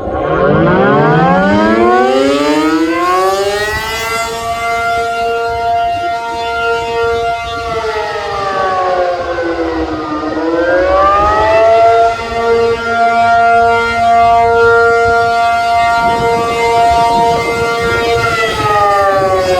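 ACA Penetrator-50 (P-50) tornado siren, with a 50 hp three-phase motor and an 8/12-port chopper, winding up from a low pitch into a loud two-tone chord over about four seconds. It holds the chord, sweeps down about halfway through, rises back up and holds again, then starts to fall near the end. This rise and fall is the Attack signal, sounded on a siren test.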